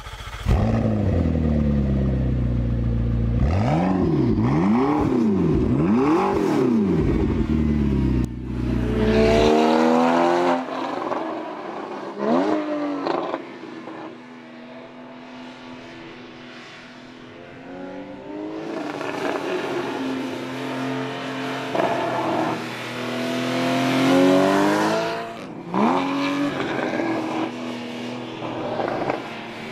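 Porsche Boxster GTS's 3.4-litre flat-six accelerating hard through the gears, revs climbing and then dropping at each gear change, growing louder and fading as the car passes. It opens with about nine seconds of a deep rumble that sweeps up and down and then cuts off abruptly.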